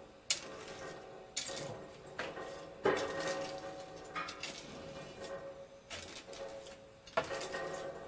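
A long homemade metal spatula knocking and scraping against the steel pot of molten wheel-weight lead while pushing flux under the surface: about six sharp metallic clanks, each leaving a short ringing tone.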